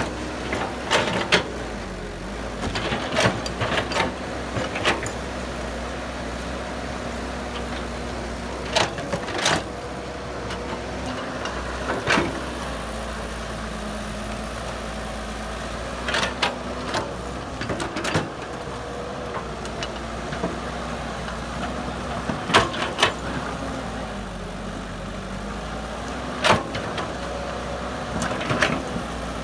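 Bulldozer's diesel engine running steadily, its pitch shifting up and down a few times, with sharp knocks now and then.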